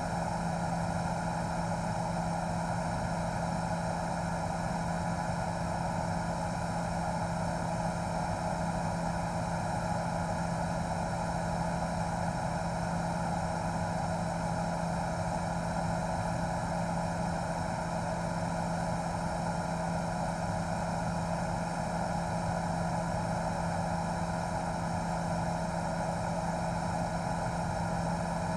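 News helicopter's engine and rotor noise: a steady drone with a constant low hum and a higher whine, unchanging throughout.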